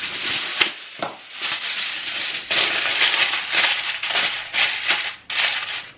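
Aluminium foil crinkling and rustling loudly in uneven swells as it is scrunched and pressed by hand into a slow cooker's ceramic pot.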